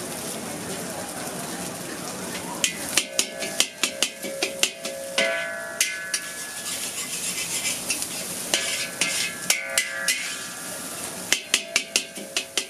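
Noodles sizzling in a hot wok, then a metal spatula clanging and scraping against the metal wok. The strikes come in quick runs of sharp, ringing hits, starting about two and a half seconds in, while the sizzle carries on underneath.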